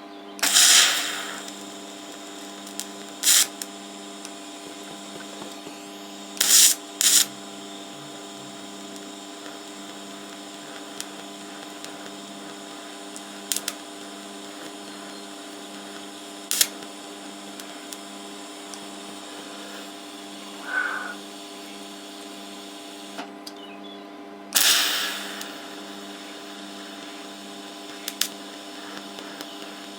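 TIG welding steel on a rusty fuel tank: the arc is struck in short bursts of about a second, several of them, while pinholes are filled. A steady electrical hum from the welding set runs underneath.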